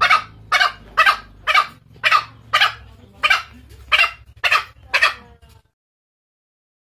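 Green junglefowl lure call: a rapid series of short, harsh calls, about two a second over a faint low hum, stopping abruptly about five and a half seconds in.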